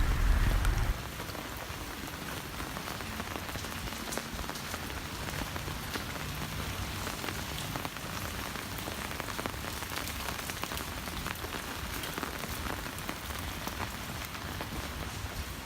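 Steady rain falling on the ground and into puddles, with individual drops ticking now and then. A low rumble in the first second stops abruptly.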